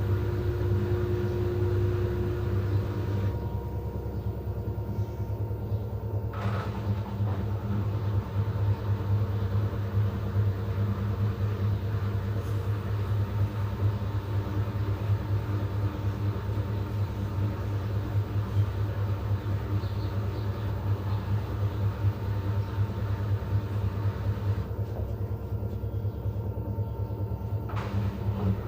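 LG front-load washing machine spinning its drum, a steady low hum with a rapid, even rumble.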